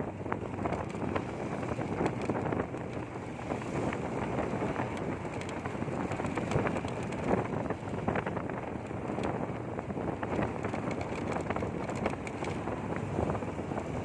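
Wind buffeting the microphone on a moving motorcycle, with the bike's running and road noise mixed in, a steady gusting rush.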